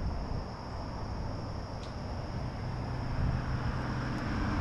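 Outdoor ambience: a steady low rumble that grows slightly louder toward the end, under a thin, steady, high insect hum.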